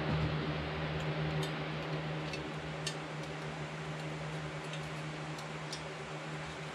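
Light, scattered clicks and taps of hands working on a chainsaw that is not running, over a steady low hum.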